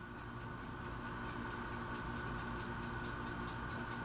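Faint, fast, regular ticking over a low, steady electrical hum.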